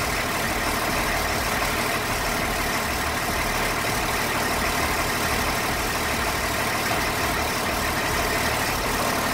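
Caterpillar 3116 inline-six turbodiesel of an LMTV truck idling steadily, heard close by at the battery box.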